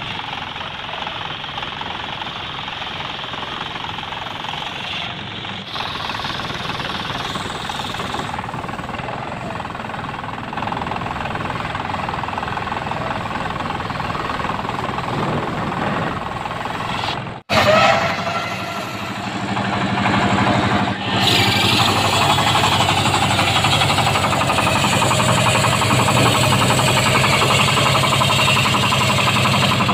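Band sawmill running and cutting mahogany: the saw's steady mechanical noise and the sound of the blade through the wood over an engine's steady hum. About 17 seconds in, the sound cuts out for an instant and comes back louder, with the engine's hum more prominent.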